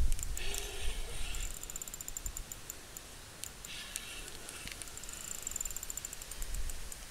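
Spinning reel being cranked to retrieve a spoon lure, with fast high ticking in stretches. Wind rumbles on the microphone, loudest in a bump at the very start.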